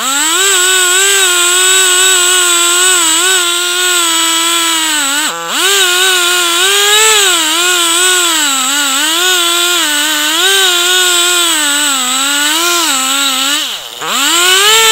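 Two-stroke chainsaw at full throttle ripping lengthwise through a log in a chainsaw mill. Its pitch wavers under load, dips sharply about five seconds in and again near the end, then climbs back. The cut is going slowly, which the sawyer takes for a chain that needs sharpening.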